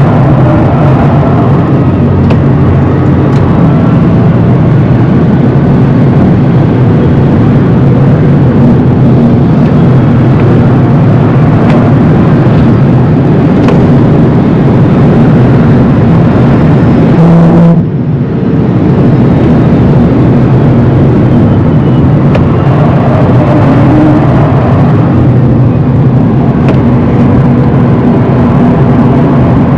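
Rimac Nevera electric hypercar driven hard, heard from on board: loud, steady tyre and road roar with a faint electric-motor whine rising and falling with speed. The sound briefly drops and dulls about eighteen seconds in.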